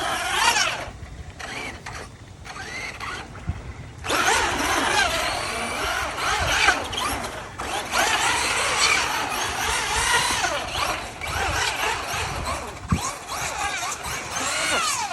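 Electric motor and drivetrain of a two-wheel-drive Traxxas Slash RC truck whining, rising and falling in pitch with the throttle. It drops back to a lower level about a second in, then picks up again at about four seconds and keeps revving up and down.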